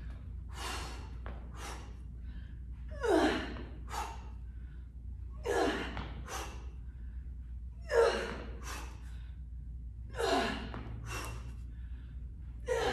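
A woman breathing out hard with each rep of a dumbbell swing through the legs and overhead. Each rep brings a forceful, falling "hah" followed by a quick second breath, about every two and a half seconds, six times.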